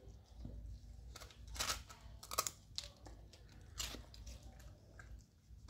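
Pomeranian puppy chewing pieces of rusk, with irregular sharp crunches as it bites down.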